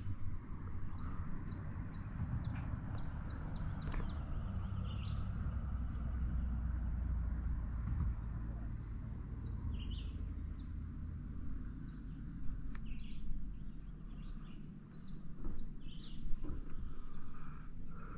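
Birds giving many short, high chirps and calls over a steady low rumble, with a couple of sharp knocks in the second half.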